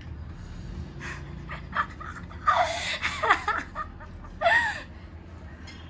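A person's non-speech vocal sounds, breathy with sliding pitch: a run of them from about two and a half seconds in, then one more short one about a second later.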